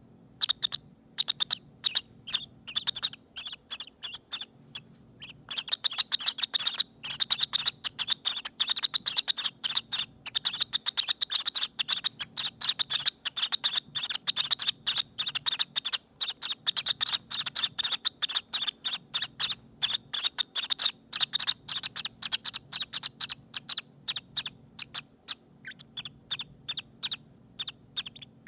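Baby peach-faced lovebirds (hand-fed chicks) making soft, rapid high-pitched peeps and chirps as they settle to sleep. The peeps are scattered at first, then from about five seconds in they come as a near-continuous chatter.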